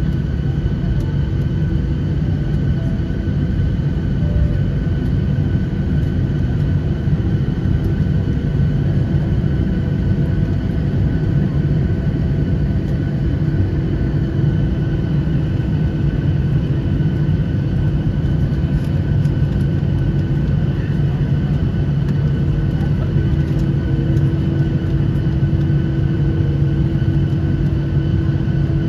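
Airliner cabin noise while taxiing: the jet engines run at idle, giving a steady deep rumble with a constant hum that holds unchanged throughout.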